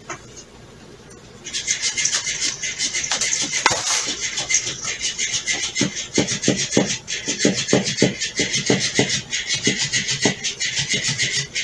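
Battery-powered Flippity Fish cat toy starting up about a second and a half in: its motor gives a steady mechanical buzz while the fish flops, its tail thumping the floor about three times a second from about halfway through.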